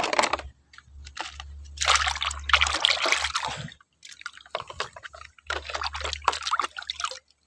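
Water sloshing and dripping as a plastic toy pistol is washed by hand, in several short irregular bursts of splashing.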